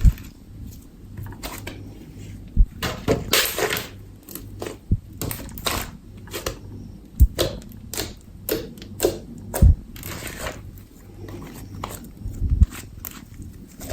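Slime being squished and poked by hand: a busy run of sticky clicks, pops and crackles, with a few low thumps.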